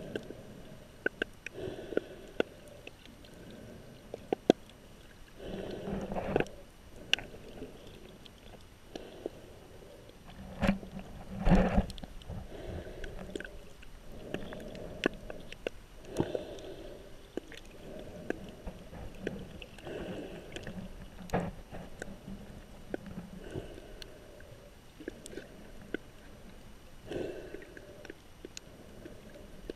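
Underwater sound picked up through a GoPro housing while snorkeling over a rocky reef: muffled swells of water movement every few seconds, the loudest about eleven seconds in, with scattered sharp clicks.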